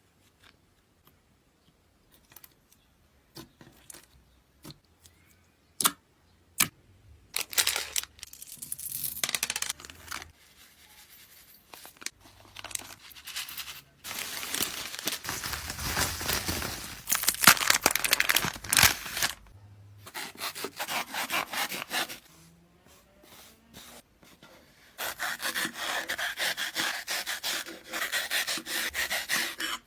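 Slime being handled and stretched: sticky crackling and popping, a few scattered snaps at first, then longer runs of dense crackle.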